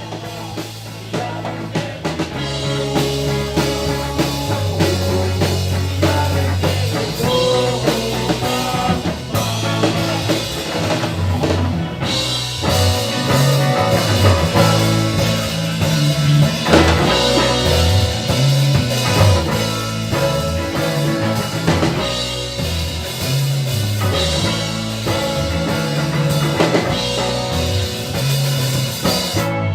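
Rock band playing, with a drum kit and a bass line stepping between notes; the music cuts off abruptly at the very end.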